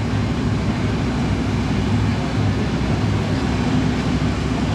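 A field of stock V8 race cars running together at slow pace speed under caution: a steady, low engine rumble.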